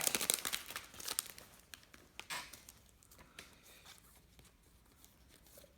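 Trading card pack wrapper being torn open and crinkled, a crackly rustling in the first couple of seconds that thins to a few light crinkles and then dies away.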